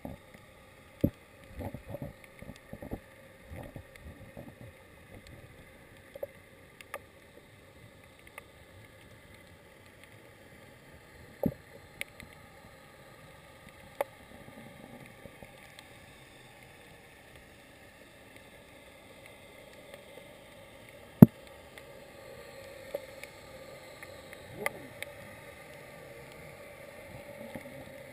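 Muffled underwater sound heard through a waterproof camera housing: a steady dull hiss with scattered sharp clicks and knocks, several in the first few seconds and one loud click about 21 seconds in.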